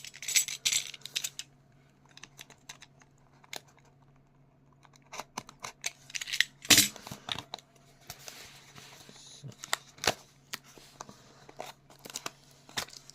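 Packaging of a pair of headphones being opened by hand: bursts of rustling and tearing of the box and wrapping, with sharp clicks and taps, the loudest about seven seconds in.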